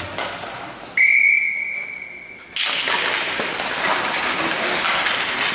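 A referee's whistle blown in one steady high blast about a second in, lasting about a second and a half. It cuts off as a sudden loud, even wash of rink noise takes over.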